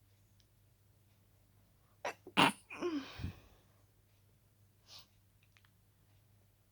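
A harshly stifled sneeze: two short catches, then one sharp, held-in burst about two and a half seconds in, trailing off in a breathy release. A faint short breathy sound follows a couple of seconds later.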